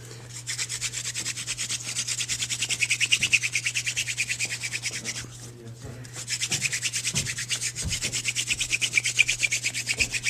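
Hand-drill spindle of weed stalk spun fast against a cedar hearth board for friction fire, making a quick, even scratchy rubbing of about eight strokes a second. It pauses briefly about five seconds in, then picks up again. The drilling is deep enough to bore through the board and get it smoking.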